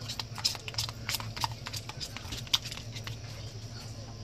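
Plastic sour cream tub being handled, giving a quick irregular run of clicks and crackles, the sharpest about two and a half seconds in, then fewer, over a steady low hum.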